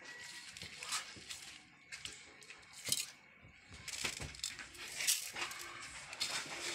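A hand squeezing and mixing soft, wet food in a stainless steel bowl, with irregular squelches, rustles and scrapes against the metal.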